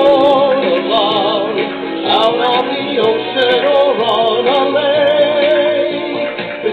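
A man singing, holding long notes with a wide, wavering vibrato and moving from note to note.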